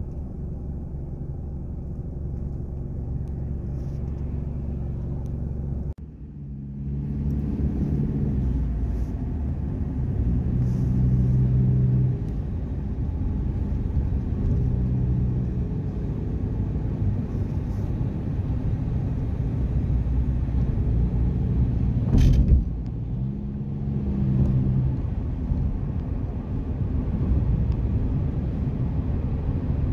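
Road and engine rumble heard from inside the cabin of a moving car, with a low drone that swells and fades several times. The sound dips sharply about six seconds in, and a single sharp knock comes a little past twenty-two seconds.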